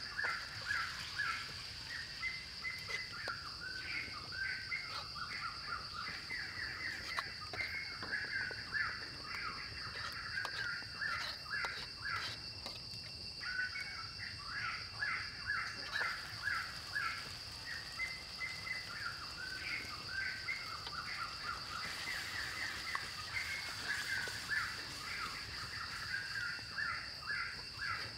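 Birds chirping and calling over a steady, high insect drone.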